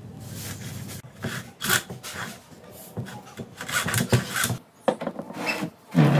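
Steel rebar scraping and knocking inside a plastic mould packed with cement mix as it is poked and worked into the mix, in a run of irregular rasping strokes. A short, loud voice-like sound near the end.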